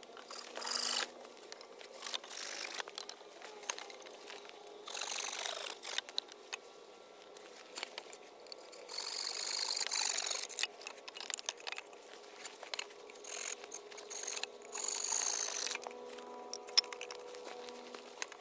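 Dead branches being handled and laid into place: irregular bursts of rustling and scraping of dry wood and leaf litter, some a second or two long, with scattered knocks and clicks of wood between them.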